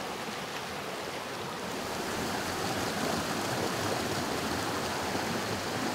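Mountain stream rushing over rocks: a steady noise of flowing water that grows a little louder about two seconds in.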